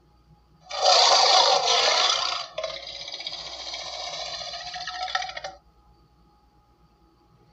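A big cat growling, played back through a TV's speaker. A loud, rough burst comes about a second in, then a longer, evenly pitched growl that stops about five and a half seconds in.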